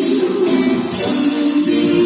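A woman singing a song into a microphone, with guitar accompaniment and regular strummed or shaken strokes.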